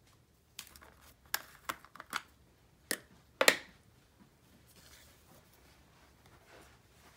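Metal spoon clicking and scraping against a plastic jar as thick slime is scooped out, several sharp clicks, the loudest about three and a half seconds in, followed by a faint soft noise.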